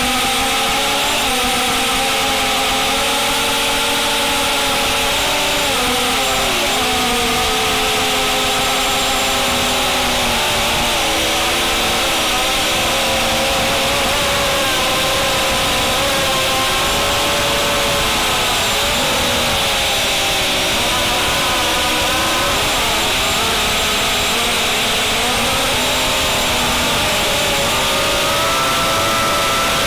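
Brushless motors and propellers of a QAV250 racing quadcopter whining in flight, heard from its onboard camera, with several tones rising and falling together as the throttle changes, over a steady rush of air.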